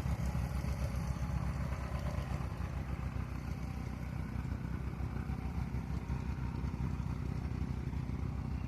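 Light airplane's piston engine running steadily at low power, a fast even throb with no change in pitch or level.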